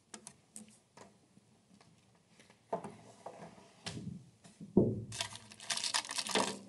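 Desk handling noises: scattered light clicks and taps, then a thump about five seconds in followed by a second and a half of rustling.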